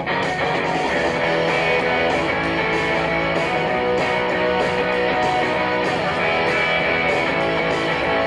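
Background music with guitar, at a steady level.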